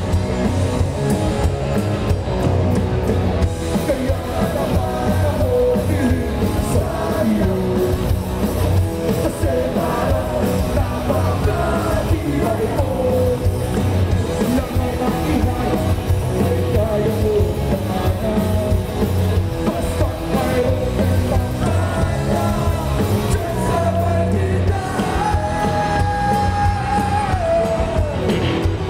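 Rock band playing live: a male lead singer over electric bass, electric guitar and drum kit, loud and steady throughout.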